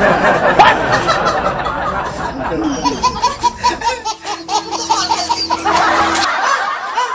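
Laughter throughout, with a baby laughing in rapid repeated bursts from about three seconds in, over background music.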